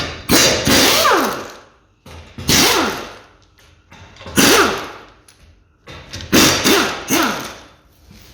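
Air-powered wrench with a 19 mm socket loosening the rear wheel bolts of a car: about five short bursts a second or two apart, each starting sharply and winding down in pitch.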